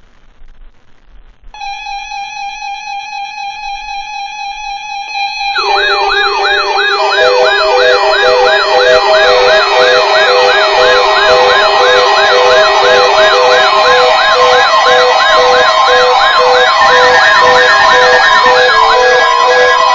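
Several NOAA weather alert radios alarming together for a Required Weekly Test. A steady electronic tone starts about a second and a half in. About four seconds later a fast warbling siren and on-off beeping tones join it.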